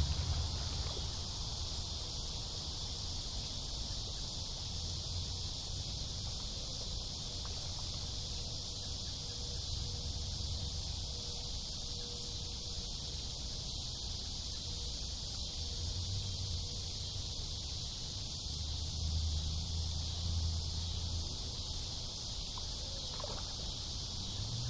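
A steady, high-pitched drone of an insect chorus, with a low rumble that swells and fades underneath a few times.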